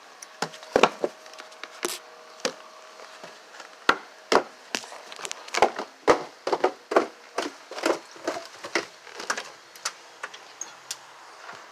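Irregular knocks and clacks on wood, like footsteps on wooden porch boards, about two or three a second and loudest in the middle.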